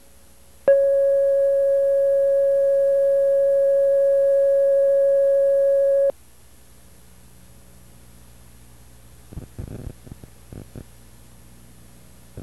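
Steady electronic test tone, one mid-pitched note with faint overtones, held for about five and a half seconds and cut off abruptly. A few soft low thumps follow near the end.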